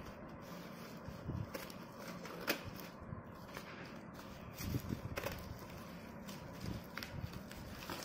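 Scissors cutting open a taped courier parcel wrapper: irregular snips, with the plastic and paper packaging crinkling as it is handled.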